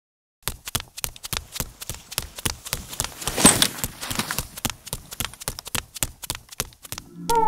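Rapid, irregular clattering hoofbeats of a goat running, several knocks a second, with a louder rushing burst about three and a half seconds in.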